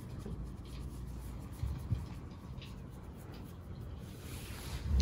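Fingers scratching a cat's fur close to the microphone: a soft, repeated rustling rub, with a couple of brief low bumps about one and a half to two seconds in.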